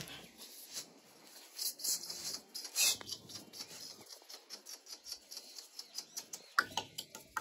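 Doberman puppies' paws pattering and scuffing on a concrete floor as they scramble and play, a run of faint, quick little ticks.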